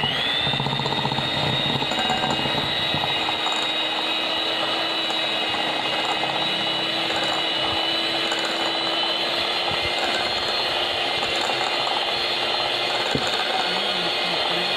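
Electric hand mixer running steadily on low speed, its beaters whipping butter and sugar in a glass bowl; the motor's whine rises briefly as it spins up at the start, then holds one even pitch.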